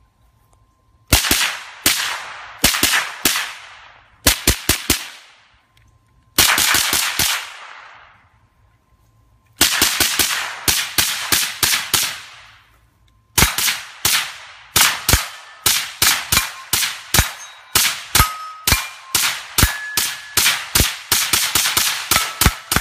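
Suppressed FN PS90 with a 10-inch barrel and Innovative Arms Sheppard suppressor firing 5.7x28mm rounds semi-automatically in fast strings. Short quick volleys come in the first few seconds, then a string of about ten shots around ten seconds in, then near-continuous rapid fire through the last nine seconds.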